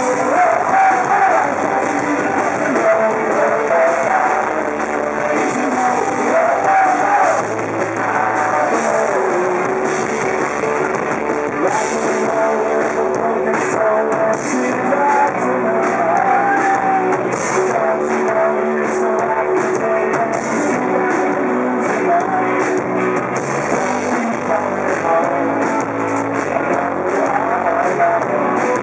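Rock band playing live, a singer's voice over guitar, bass and drums, with poor, muddy recording quality.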